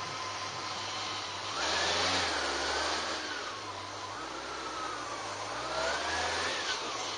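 A motor vehicle running, with a steady low engine tone that shifts in steps and a constant rush of wind and road noise. A higher tone glides up and down from about a second and a half in until near the end.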